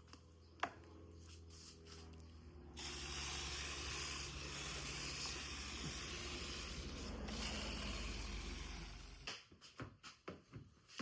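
Liquid being sprayed from a sprayer during paint protection film installation, most likely slip or cleaning solution on a car hood: a steady hiss lasting about six seconds, starting a few seconds in over a low hum, then stopping abruptly.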